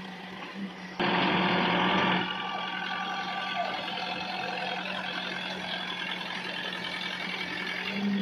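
Air drilling rig and its compressor running with a steady engine hum; about a second in, a loud rushing noise starts suddenly, then settles after about a second to a steady, somewhat lower level.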